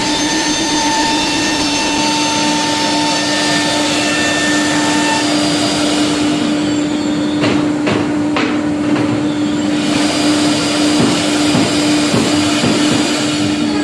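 CNC router running and cutting: a steady spindle tone holds throughout under a rough, even cutting noise, and a higher tone drops out about five seconds in.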